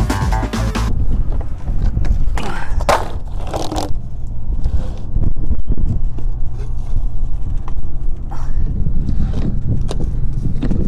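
Heavy wind rumble on the microphone, with irregular scraping and clicking as a plastic RV sewer hose and its fittings are handled and fitted onto the tank outlet.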